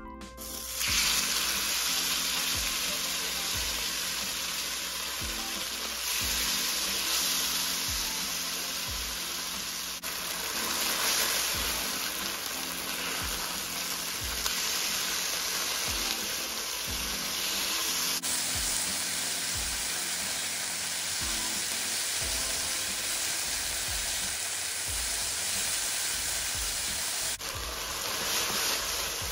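Marinated chicken pieces sizzling in hot oil in a nonstick wok, starting suddenly about a second in as they are poured in, with a spatula stirring and flipping them as they fry.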